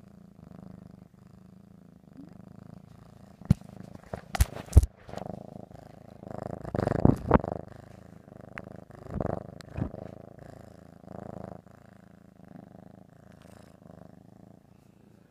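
Siamese cat purring close up, a steady low rumble. A few sharp knocks come about four to five seconds in and are the loudest sounds, and the purring swells louder for two short stretches after that.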